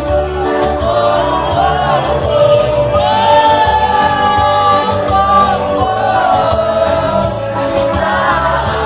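Live band music with a singer's voice, some notes held long, over a full low end from bass and drums.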